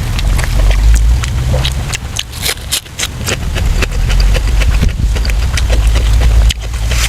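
A person chewing and smacking loudly close to the microphone, eating soft braised pork intestines, with many irregular wet clicks over a steady low rumble.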